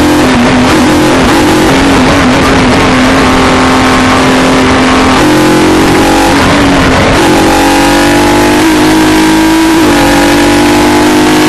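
Formula Jaguar single-seater's 3-litre V6 at full throttle, heard from on board, its pitch slowly climbing as the car gathers speed, over a heavy rush of noise.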